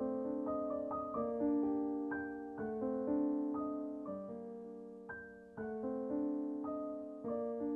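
Background piano music: slow, gentle notes struck a few at a time, each ringing and fading.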